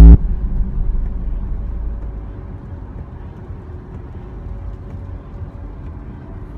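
Steady low rumble of a car's engine and road noise heard from inside the moving car, easing slightly after the first couple of seconds. A loud, brief thump right at the start is the loudest thing.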